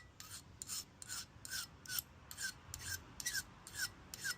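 Cold knife blade being sharpened by hand, stroked repeatedly across a sharpener at about two strokes a second. Each stroke is a short rasp ending in a brief falling squeak.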